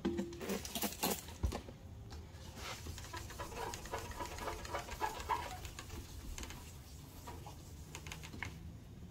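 A trigger spray bottle squirting water a few quick times near the start, then 1500-grit wet-sanding paper rubbed back and forth by hand over the wet painted motorcycle fuel tank, a steady scratchy swishing. The sanding is dulling a remaining shiny spot in the fresh clear coat before buffing.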